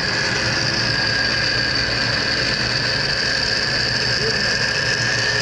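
Metal lathe turning a camshaft, the tool cutting and throwing off chips: a steady machining noise with a high whine.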